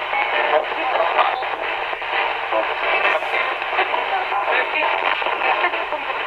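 Ghost box: a Radio Shack 20-125 radio sweeping the FM band, played through a guitar amp and an effects pedal. It gives a steady band-limited hiss, broken by rapid choppy snippets of broadcast voices and music.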